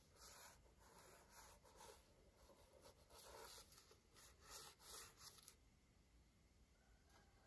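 Faint scratching of a drawing tool stroked across paper: a run of quick back-and-forth strokes that stops about five and a half seconds in.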